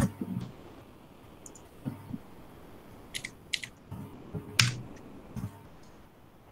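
A sharp mouse click, then computer keyboard keys tapped in short, irregular runs as a search is typed, with the loudest keystroke a little past the middle.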